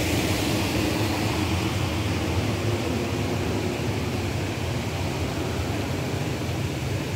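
Steady rushing of water pouring over a small weir into a creek, easing off slightly as it goes on.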